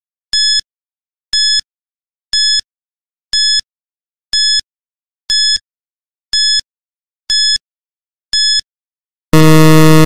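Quiz countdown timer sound effect: nine short high beeps, one each second, then a loud, longer low buzzer near the end as the count reaches zero.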